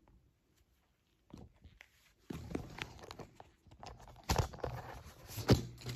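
Handling noise from the recording camera being picked up and moved: a string of irregular rustles, clicks and bumps, with two sharp knocks in the second half.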